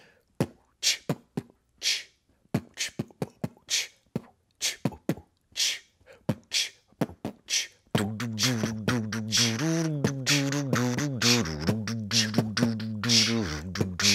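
A man beatboxing. For the first half there are separate sharp mouth clicks and hisses; about halfway through it turns into a dense, continuous beat with a hummed, wavering tone under it.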